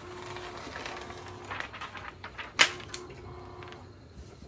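A thin clear plastic carrier sheet crinkling and rustling as it is lifted off and handled over a cotton shirt, with one sharp, louder crackle about two and a half seconds in. A faint steady hum comes and goes underneath.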